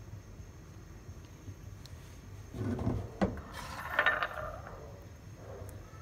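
Cookware clinking against a glass serving dish, a few clinks and a sharp knock around three seconds in, then a short wet slither as chicken and vegetables in thick gravy are tipped into the dish.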